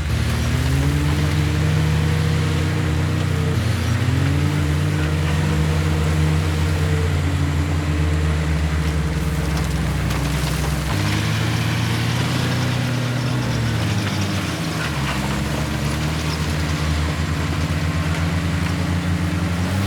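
Heavy diesel engine of earthmoving machinery running under load, its revs rising and falling again and again as it works.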